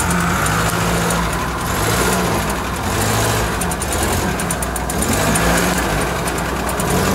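UAZ-469 engine running at low revs, its pitch rising and falling several times as the throttle is worked while the truck crawls over rocks.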